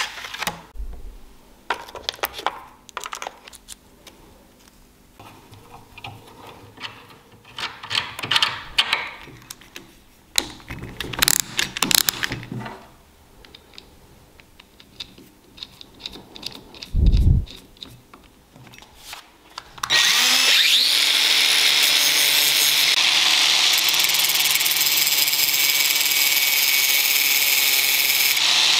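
Scattered handling clicks and knocks, with one low thump, then about twenty seconds in an angle grinder spins up and runs steadily. It is grinding a point on a metal air-compressor hose fitting held in a cordless drill's chuck, throwing sparks.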